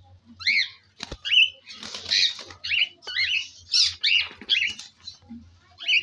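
Cockatiels giving short, squeaky chirping calls, two or three a second, loudest in the middle. A single knock sounds about a second in.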